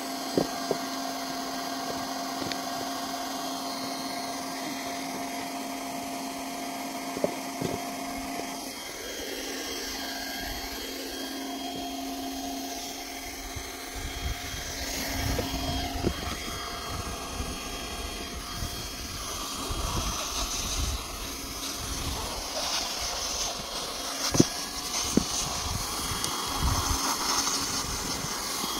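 Hand-held hot-air welding gun running with a steady motor hum and air hiss as a patch is heat-welded onto a PVC geomembrane liner. The pitch of the hum shifts a few times, and from about halfway low rumbling and a few sharp clicks join it.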